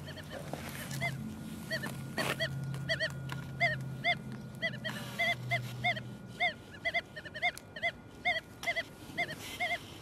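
Nokta Makro Legend metal detector sounding its target tone for a buried 14-karat gold ring: a quick run of short beeps, each rising and falling in pitch, about three a second. A low steady hum lies under the first half and stops about six seconds in.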